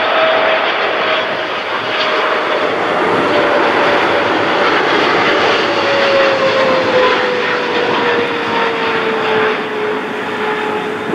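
Boeing 777 freighter's twin GE90 turbofans on final approach with the gear down: a loud, steady jet roar with a whine that slowly falls in pitch as the plane passes.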